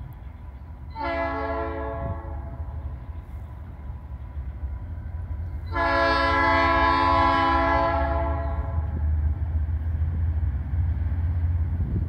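Diesel locomotive air horn on a Finger Lakes Railway GE B23-7 sounding two blasts: a short one about a second in, then a longer, louder one about six seconds in. A steady low rumble runs beneath.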